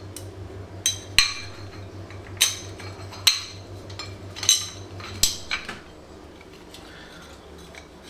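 Metal pulley halves and spacer plates of a Fiat 500 fan pulley clinking and knocking against each other as they are handled and set down: about seven sharp metallic clinks, each with a brief ring, over the first five or so seconds.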